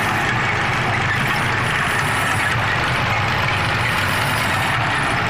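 55-station rotary tablet press running at a steady speed: a continuous low machine hum under an even hiss.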